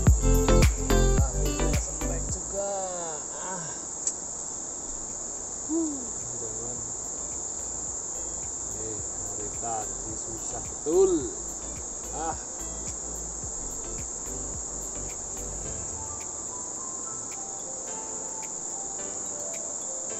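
Background music with a beat fades out in the first couple of seconds, leaving a steady high-pitched insect drone, with a few faint short rising-and-falling sounds in the middle.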